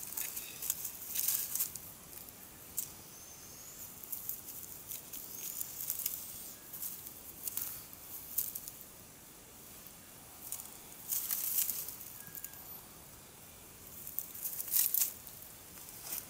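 Dry leaf litter, twigs and tangled black rope fibres rustling and crackling as a hand rummages through them and pulls the fibres out, in several short bursts.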